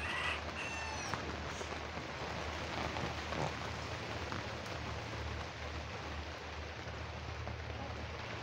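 Steady rain from a tropical storm falling on the chicken coop and yard.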